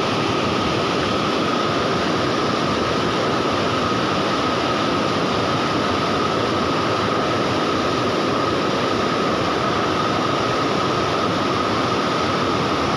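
Steady rush of water pouring over a stepped concrete weir, an even unbroken noise with a thin steady high tone running through it.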